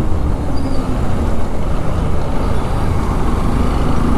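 Steady low rumble of road traffic and a motorcycle engine, with no single event standing out.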